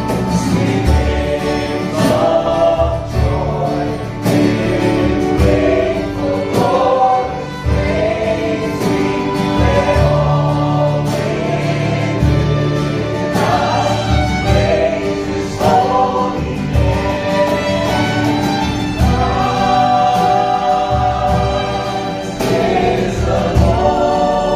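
A small group singing a song together, with keyboard, acoustic guitar and a cajon keeping a steady beat.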